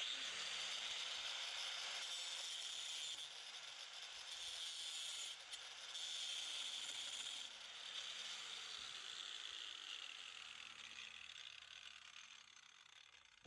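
Angle grinder with a cutting disc grinding a weld on steel pipe: a steady, hissing grinding noise that shifts a little as the disc bears on the metal and fades near the end.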